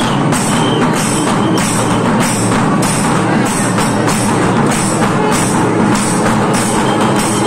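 Loud drum-led procession music with a bright metallic clash on an even beat, a little under two strokes a second.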